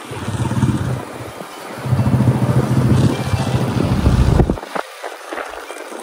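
Motorcycle on the move: a heavy low rumble comes in two stretches, a short one at the start and a longer one from about two seconds in, cutting off sharply about four and a half seconds in.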